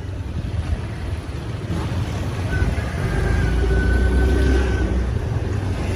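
A motor vehicle engine running and growing louder toward the middle, with a thin steady whine over the low rumble.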